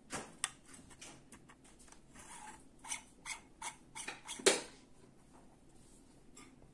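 Brass fittings are being handled and screwed onto the plastic threaded ports of a solenoid valve: a run of small clicks, ticks and thread rubbing, with the loudest knock about four and a half seconds in.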